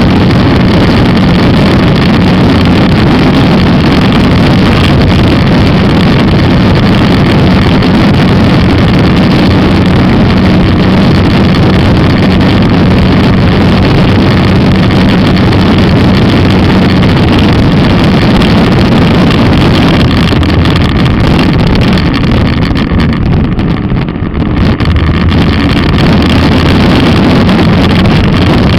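Skua 250 single-cylinder motorcycle engine running steadily while riding, mixed with wind noise on the microphone. Near the end it briefly drops and goes quieter for a few seconds, then picks back up.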